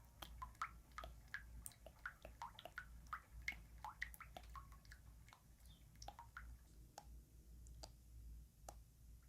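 Faint, close-miked ASMR water sounds: soft wet squishes and little drips and plips, a few a second, thinning out about halfway through.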